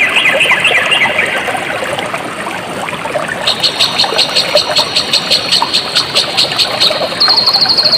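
Stream water trickling and flowing, with high chirping animal calls over it: fading chirps in the first second or so, a rhythmic high chirp about four times a second from about three and a half seconds in, then a fast, even high trill near the end.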